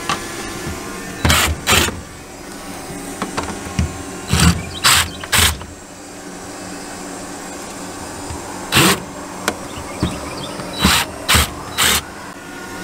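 Sharp bangs and knocks of demolition work on a mobile home's old door opening, two of them soon after the start and then two runs of three about half a second apart, over a steady humming background.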